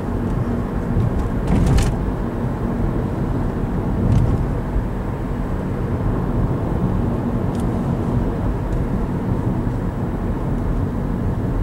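Steady road noise inside a moving car's cabin: engine and tyre rumble with most of the sound low down, and a few faint brief clicks.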